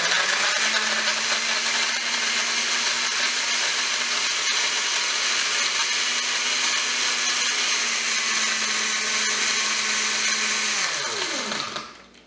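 Countertop blender running steadily as it blends ice with coffee, milk and caramel syrup. Near the end it is switched off and the motor winds down with a falling pitch.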